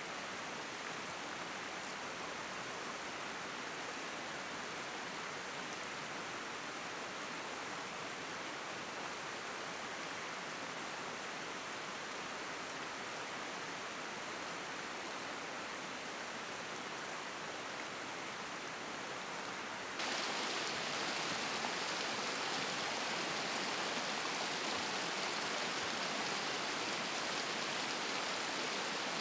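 Fast-flowing River Etive running shallow over stones: a steady rush of water that steps up in loudness about two-thirds of the way in.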